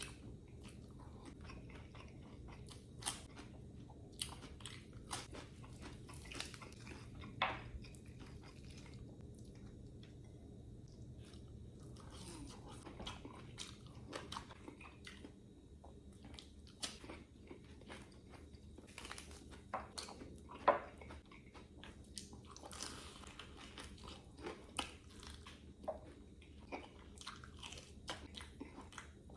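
A person eating close to the microphone: crisp, crunching bites and chewing, coming irregularly throughout, with a few louder crunches.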